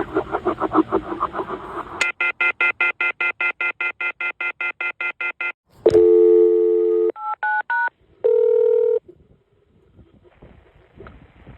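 Telephone line tones from a cordless phone left off the hook. First a rapid pulsing tone, then the off-hook warning howler pulsing fast and high for about three and a half seconds. This signals that the handset has been left off the hook. Then a second of steady dial tone, two short dialing tones and one more brief tone before the line falls quiet.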